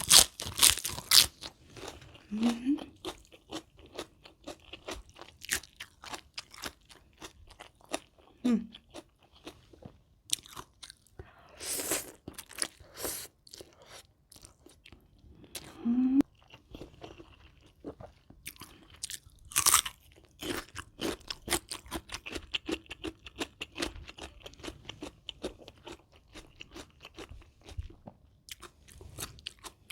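Close-miked crunching and chewing of a spicy rice-noodle salad with raw shrimp and fresh vegetables, with a few louder crisp bites. There are three brief low hums from the eater between mouthfuls.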